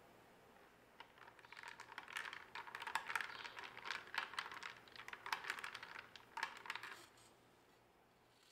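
Spoon stirring ice cubes in a glass of chocolate milk: a quick, irregular run of clinks and rattles of ice and spoon against the glass. It starts about a second in and stops shortly before the end.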